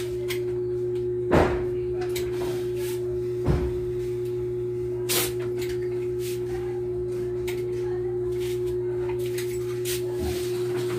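A steady hum, a low tone with a higher one over it, with several sharp knocks and clicks from handling a window frame. The loudest knock comes about a second and a half in, and fainter ones follow every second or two.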